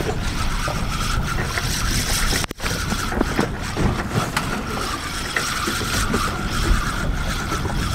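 Wind buffeting the microphone on a boat at sea, with a steady faint hum and a brief dropout about two and a half seconds in.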